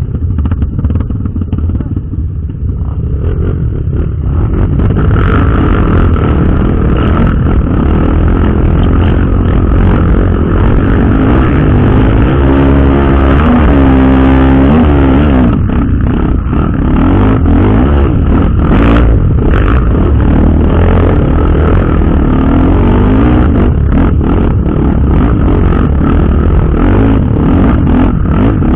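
Off-road motorcycle engine running hard, its revs rising and falling, with the pitch swinging most strongly about halfway through. Scattered knocks and rattles come through from the bike on rough ground.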